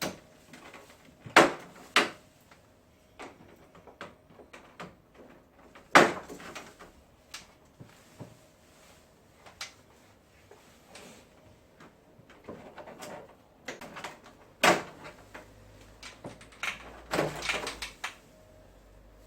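Irregular sharp clicks and knocks of hard plastic parts of a wall-mounted air conditioner being handled and unclipped, with a few louder knocks among quieter rattling.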